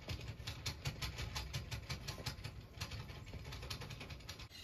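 Vehicle engine idling low and steady, with quick irregular ticks over it, several a second.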